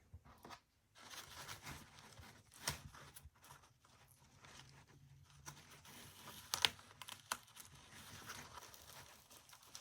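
Faint handling of Velcro hook-and-loop strips and fabric holster parts: soft, uneven rustling with a couple of short sharp clicks, one a few seconds in and another past the middle.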